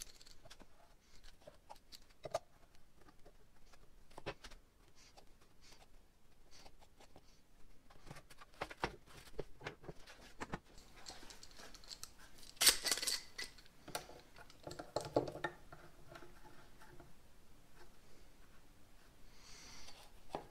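Scattered light clicks and knocks of metal F-clamps being handled and set on a clamped plywood panel. A louder metallic clatter about thirteen seconds in is followed by a brief ringing clink about two seconds later.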